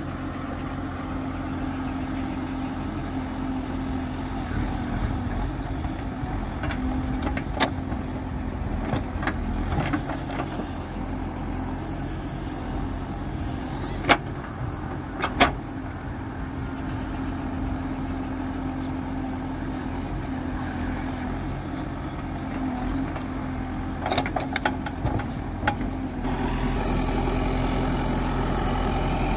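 Manitou backhoe loader's diesel engine running steadily while the backhoe digs sand, with a few sharp knocks from the working arm and bucket; the engine grows louder near the end.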